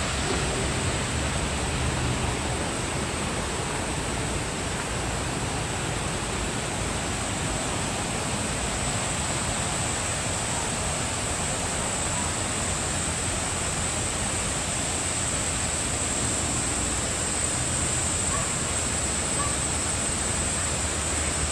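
Steady, even rushing noise with a constant high hiss on top, unchanging throughout.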